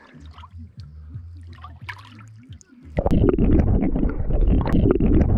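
Light splashing and trickling of shallow water around a released catfish. About three seconds in, the sound changes suddenly to a loud, muffled underwater rumble as the camera goes under the surface.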